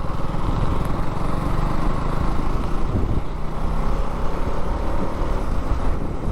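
Motorcycle engine running steadily while riding along the road, with a continuous low rumble of engine and road noise.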